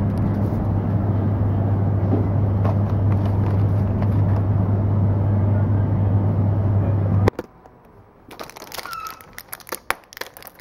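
Steady drone of a car's engine and road noise heard inside the cabin, with a strong low hum, cutting off suddenly about seven seconds in. Then, against a much quieter background, a run of small clicks and crinkles as tablets are pushed out of a foil blister pack.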